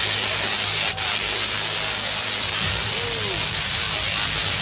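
Tesla coils firing electric arcs into a performer's handheld sword and staff: a loud, steady crackling hiss of the discharges, which drops out for an instant about a second in.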